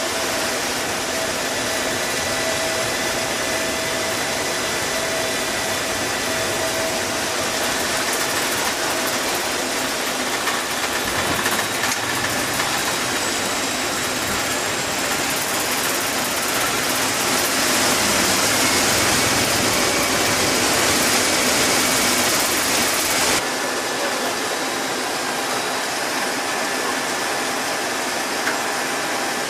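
C-17 Globemaster III flight-deck noise during landing: a steady rush of engine and airflow noise with faint steady tones. It grows louder for several seconds in the second half, then drops abruptly about three quarters of the way in.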